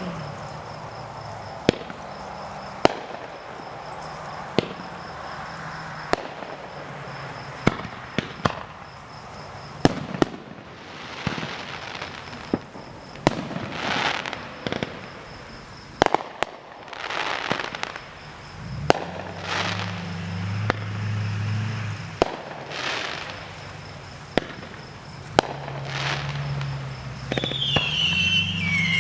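Aerial fireworks going off: sharp booms every second or two at uneven intervals, with stretches of crackling hiss between them in the middle, and a wavering whistle near the end.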